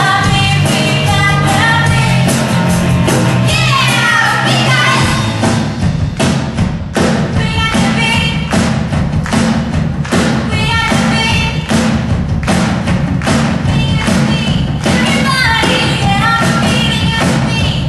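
Live rock band playing: drums with a steady beat, electric guitars, bass and keyboard, with a lead vocal singing over it.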